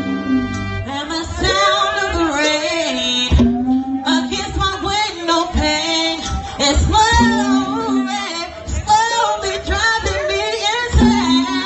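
A woman singing an R&B song live, with instrumental backing.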